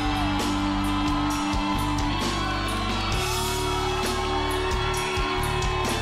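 A band playing the instrumental intro to a pop song, with held bass and chord notes under a bending lead melody and a steady drum beat with cymbals.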